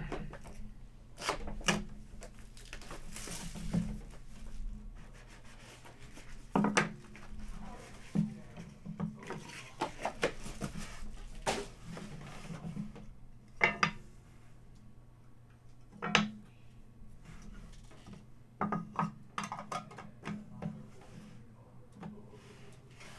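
Plastic shrink wrap rustled and torn off a trading-card box, then scattered sharp clicks and taps as hard plastic card holders are handled and set down on a table.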